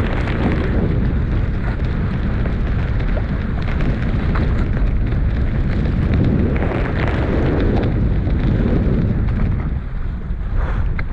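Strong wind buffeting the microphone, a loud, continuous low rumble that swells and eases with the gusts.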